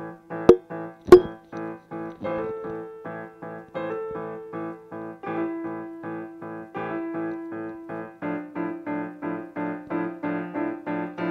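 Background piano music with evenly repeated chords, coming a little faster near the end. Two sharp clicks sound about half a second and a second in.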